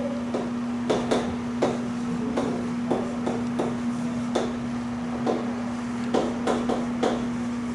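Chalk writing on a chalkboard: sharp, irregular taps of the chalk striking the board, about one or two a second, with short scrapes between them. A steady low hum runs underneath.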